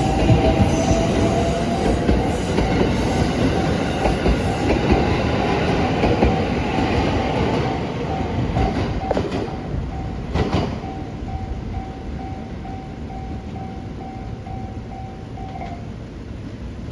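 Train passing over a level crossing, its wheels clattering over the rail joints, with the rumble dying away after about ten seconds. A level-crossing warning bell rings throughout in quick, even pulses and stops shortly before the end, as the crossing clears.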